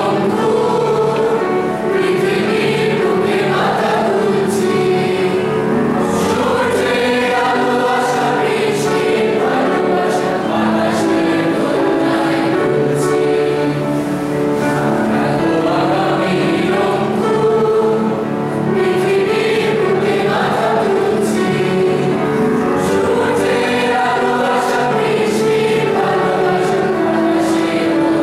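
A mixed group of young men and women singing a song together in chorus, continuously.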